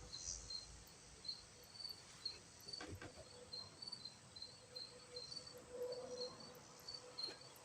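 Faint cricket chirping: short, high chirps repeating about three times a second, with a faint knock about three seconds in.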